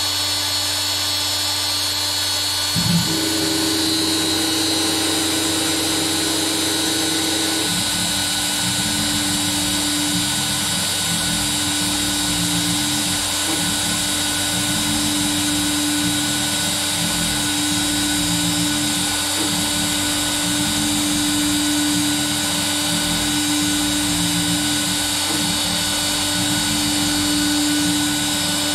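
X-Carve CNC machine's DeWalt trim router running steadily at speed while a 60-degree V-bit engraves a pass into thin brass sheet. There is a steady high whine throughout; a new steady tone joins about three seconds in, and from about eight seconds the low end turns uneven as the machine moves along the cut.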